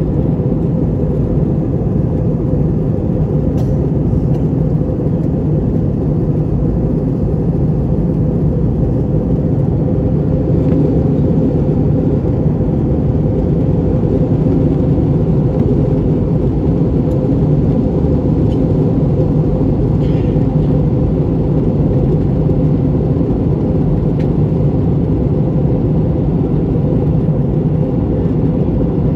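Steady cabin noise inside an Airbus A321 airliner: a low, unchanging rumble of engines and airflow.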